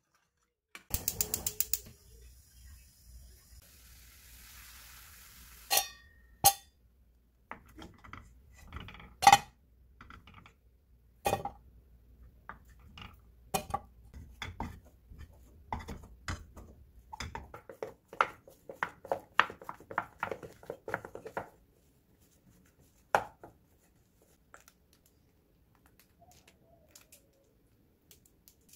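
Cooking-utensil sounds at a pot of boiled potatoes: a burst of rapid clicking and a hiss near the start, then a spatula knocking against the pan every second or two, and a quick run of scraping strokes partway through.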